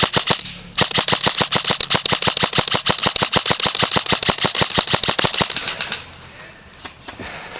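Airsoft electric gun firing full-auto: a rapid, even rattle of shots, a brief pause, then a long burst of about five seconds that stops well before the end.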